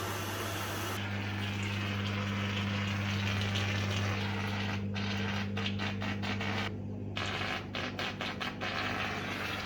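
Rosenlew RTT1055 top-loading washing machine filling with fresh water: a steady low hum under the hiss of water rushing into the drum. About halfway through the hiss starts to sputter on and off.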